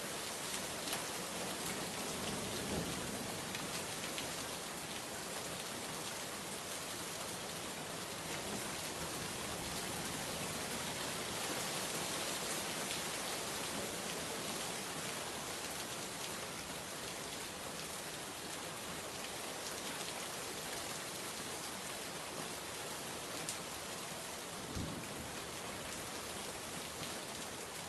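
Steady rain falling, an even hiss with a few louder individual drops standing out now and then.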